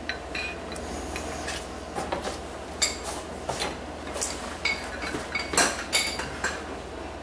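Steel socket tools (a breaker bar, long extension and socket) clinking and clanking against each other and the concrete floor, in scattered sharp ringing knocks.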